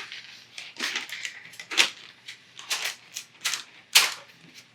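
Hard plastic packaging of a toy surprise egg being twisted by hand. It gives a series of short crackles and clicks, about two a second.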